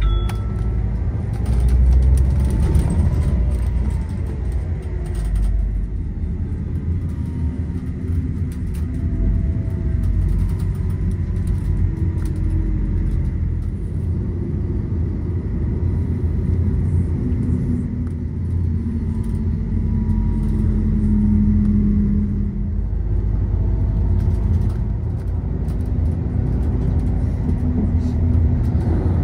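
Running noise of a moving vehicle: a steady low rumble with faint whining tones that slowly rise and fall in pitch.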